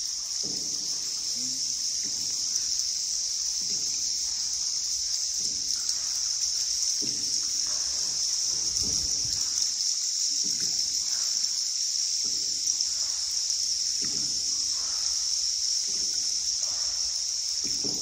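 A boat paddle dipping and pulling through the water about every one and a half seconds, with soft splashes. Under it runs a steady, high-pitched drone of insects.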